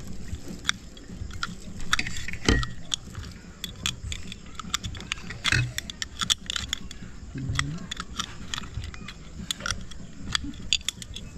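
Metal utensil clicking and scraping against the shell of a cooked sea snail as its meat is pried out, a rapid, irregular run of sharp clicks, mixed with cutlery clinking on plates.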